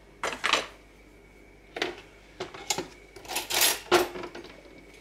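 Kitchen handling noises: a plastic butter tub set down on a wooden chopping board, then a few light clinks and knocks, a short rattle about three and a half seconds in and a sharp click just after it.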